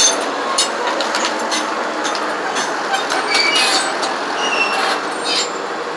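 John Deere crawler bulldozer working close by: a steady engine noise with repeated clanks and a few brief high squeals from its steel tracks.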